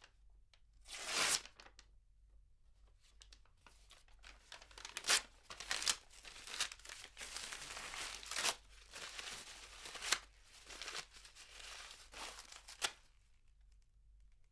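Paper tearing: one quick short rip about a second in, then a longer stretch of tearing in several ragged pulls from about four seconds until shortly before the end, heard from a medium distance.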